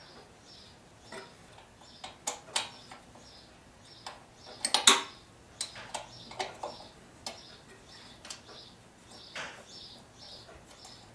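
Scattered metal clinks and knocks of hand tools and small engine parts being handled, the loudest cluster about halfway through. Behind them a faint high chirp repeats about three times a second.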